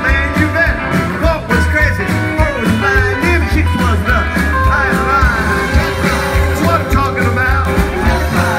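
Rockabilly band playing live, heard from within the crowd: a stand-up bass thumps out a steady walking line under a hollow-body electric guitar, drums and a sung vocal.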